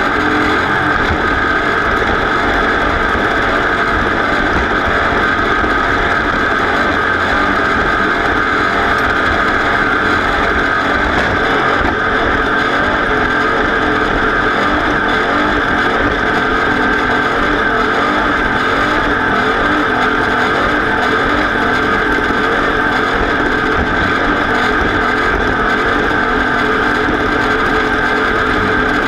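Racing vehicle's engine running loud and steady at high speed, its pitch and level holding even throughout with no revving up or down.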